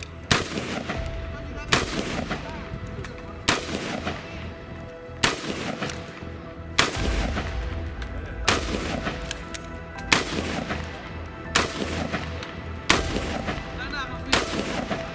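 Colt M4 carbine firing 5.56×45mm NATO in semi-automatic: about ten single shots, roughly a second and a half apart, each followed by a short echo.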